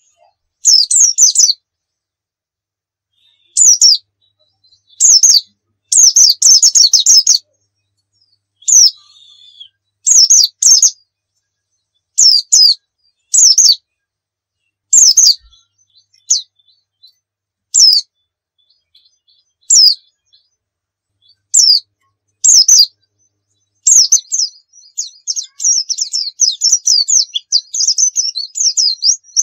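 Pleci dakun white-eye singing: short bursts of high, rapid twittering every second or two, running into one continuous fast twittering song near the end.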